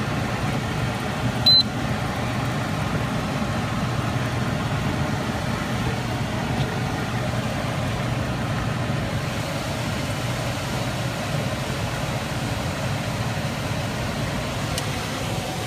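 Steady hum and rushing noise of running machinery, with one short high-pitched beep about a second and a half in.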